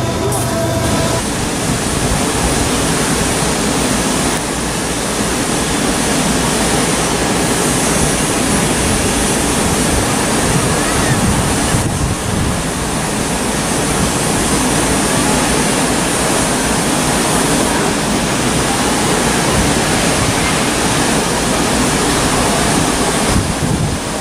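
Steady sea wind blowing on the microphone, with low rumbling buffets, over the wash of breaking waves.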